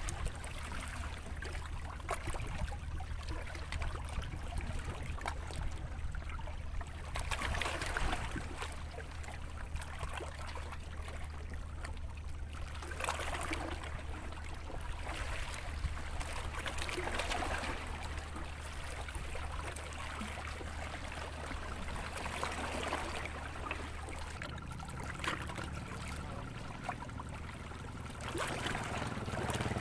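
Water lapping and trickling unevenly, over a steady low hum that fades out near the end.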